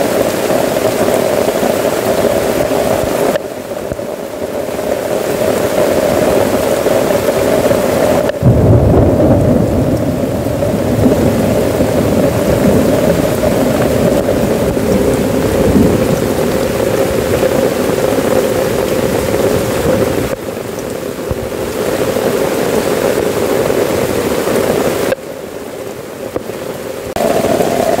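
Heavy rain pouring down and drumming on a tent tarp. About a third of the way in, a deep rumble of thunder rolls in suddenly and lasts several seconds.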